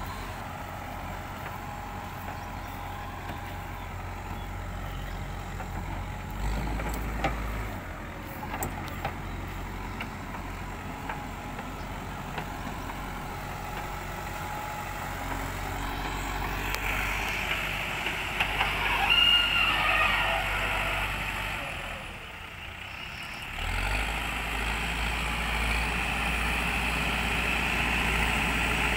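Terex backhoe loader's diesel engine running steadily as the machine works across a ploughed field. A higher whine rises and falls for a few seconds in the middle. Just after that the engine note drops briefly, then picks up again and runs louder.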